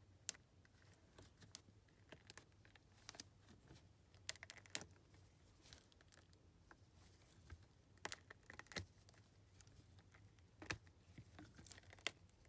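Faint, scattered crackles and small ticks of the outer skin of a peelable squishy toy being pulled away by hand, with light crinkling of wax paper beneath it.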